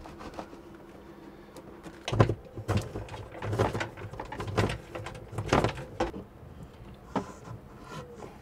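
Handling noise from installation work in a wooden cabinet: a run of knocks, bumps and scrapes as the heavy inverter and its cables are fitted, clustered between about two and six seconds in, with a couple more near the end.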